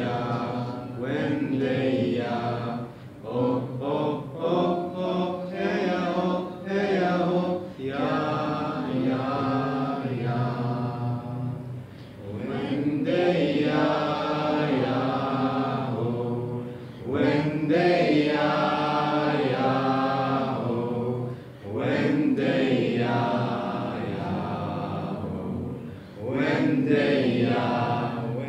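Chanting voices in long, held, wordless phrases, broken by short pauses, over a low steady drone.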